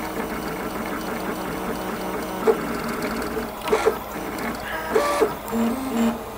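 Open-frame 3D printer's stepper motors whining in a string of short tones that jump from pitch to pitch as the print head moves over the parts being printed. A few louder, higher-pitched moves stand out in the second half.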